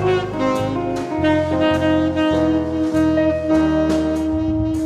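Background instrumental music: a sustained melody line over a bass line that changes note about every half second, with light regular percussion hits.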